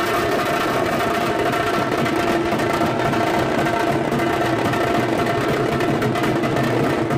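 Music with long held tones and some percussion.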